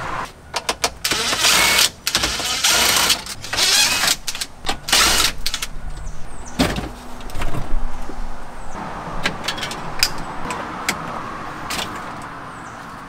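Cordless drill-driver running in several short bursts of about a second each, backing out the factory radio's mounting screws, followed by scattered clicks and knocks of plastic and metal as the radio is worked loose and lifted out of the dash.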